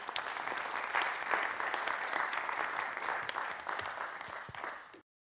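Audience applauding, a dense steady clatter of many hands clapping that cuts off suddenly near the end.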